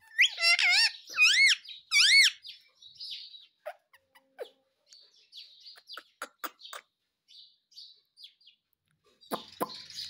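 Indian ringneck parakeet making three loud calls whose pitch wavers up and down in the first two seconds, then softer short chirps and scattered sharp clicks. More clicks and a call start again near the end.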